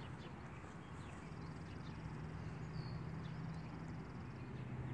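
Faint outdoor ambience: a steady low motor-like hum, with a rapid high-pitched trill lasting about three seconds and one short high chirp partway through.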